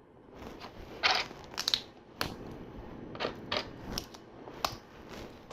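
Plastic LEGO bricks clicking and rattling as pieces are picked up, handled and pressed together, about seven or eight sharp clicks at irregular intervals.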